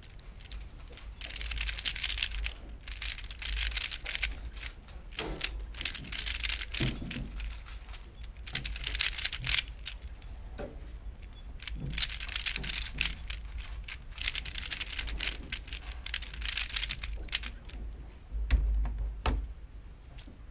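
3x3 speed cube being turned fast, plastic layers clacking in quick bursts of moves separated by short pauses, as in blindfolded execution. A dull low thump near the end.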